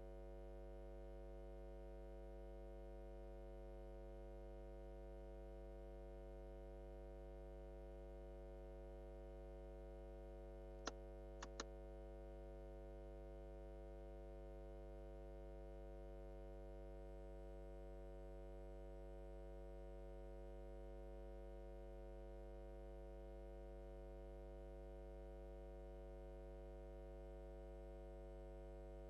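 Faint steady electrical mains hum, a stack of steady tones, with three short clicks in quick succession about eleven seconds in.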